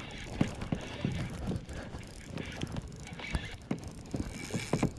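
Fishing reel being cranked as a redfish is reeled in, giving irregular clicks and knocks over a low rumble.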